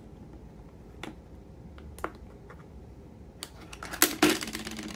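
Memory cards being handled: small scattered plastic clicks, with a louder cluster of clicks and rattling about four seconds in.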